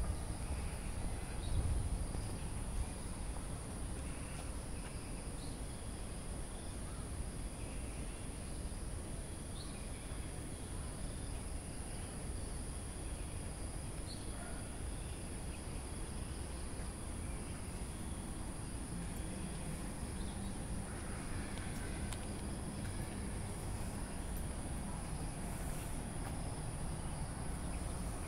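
Chorus of insects, a steady high-pitched drone, over a low background rumble.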